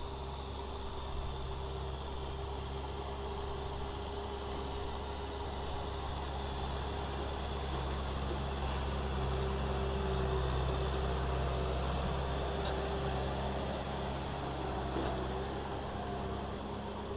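Kubota M6040SU tractor's four-cylinder diesel engine running steadily under load while the tractor pushes mud with its front blade and tills with its rear rotary tiller, a little louder around the middle.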